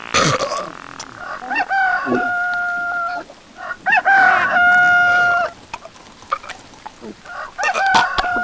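Rooster crowing three times, a couple of seconds apart. Each crow opens with a quick rising sweep and ends in a long held note.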